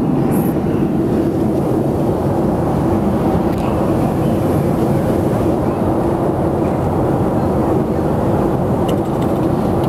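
Steady low drone of a jet airliner's cabin in flight: engine and rushing-air noise, even throughout.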